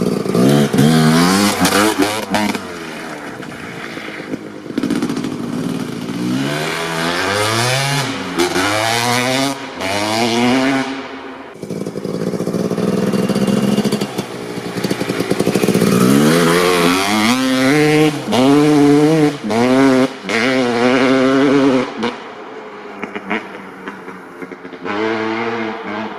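Honda CR250R single-cylinder two-stroke motocross bike accelerating hard, its revs climbing and dropping over and over. The engine grows fainter near the end as the bike rides away.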